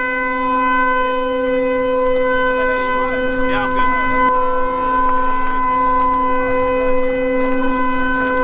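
A single steady, unbroken horn-like tone held at one pitch, with faint voices under it about three to four seconds in.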